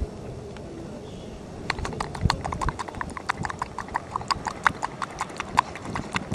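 A person clicking their tongue rapidly and unevenly, about eight clicks a second, to call a chipmunk. The clicking starts about two seconds in.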